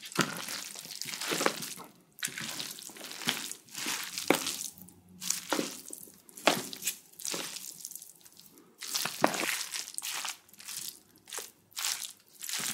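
Jumbo bowl of spicy bibimbap being mixed: irregular wet squishing and scraping as the rice, vegetables and crushed fried egg are worked together.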